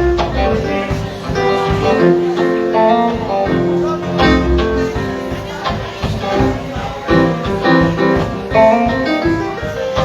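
Live band playing through a PA at a sound check: guitar and keyboard over a steady drum beat.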